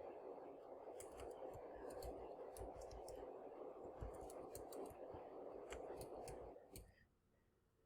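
Faint, scattered clicks of computer keys being typed, over a steady low background hum that cuts out about seven seconds in.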